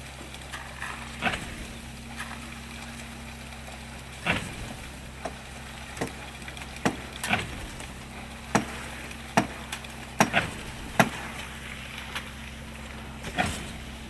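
Steady low drone of a truck-mounted concrete mixer pump running, with about a dozen wet slaps and knocks at uneven intervals as fresh concrete is pumped out of the pipe and worked by shovel.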